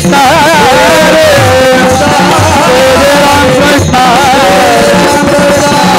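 Marathi devotional singing (a kirtan panchapadi): a voice sings a wavering, ornamented melody over a steady pakhawaj drum rhythm. Small brass hand cymbals (taal) clash in time throughout.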